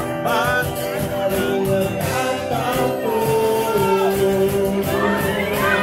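Live band music with singing: a song with long held sung notes over the instruments.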